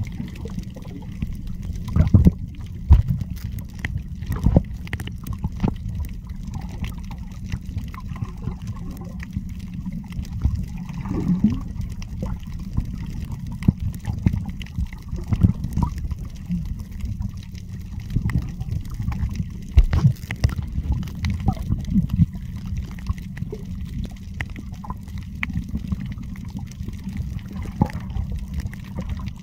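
Muffled underwater sound of the sea heard by a camera held below the surface: a steady low rumble of moving water with scattered clicks and crackles.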